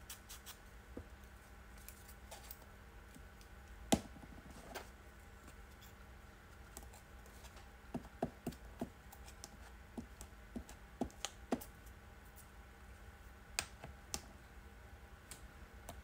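Quiet crafting handling sounds: scattered light taps and clicks of a glue stick and small paper pieces being picked up, set down and pressed on a cutting mat, with one sharper tap about four seconds in, over a faint steady hum.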